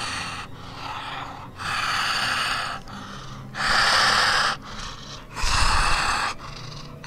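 Acted, labored, rattling breathing: a series of about five harsh, rasping breaths, each lasting about a second with short pauses between them. It is the fast, rattling breathing of a dying person.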